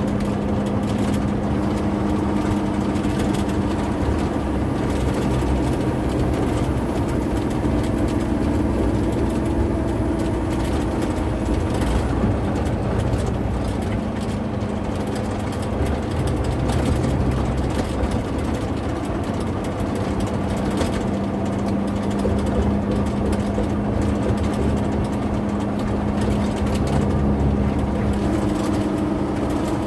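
Engine and road noise inside the cab of a large vehicle on the move: a steady drone with a humming engine note. The note drops lower for several seconds midway, then returns.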